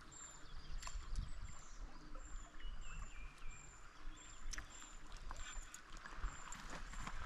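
Mountain river water rushing steadily, with a short high chirp repeating about every two-thirds of a second and a few light clicks.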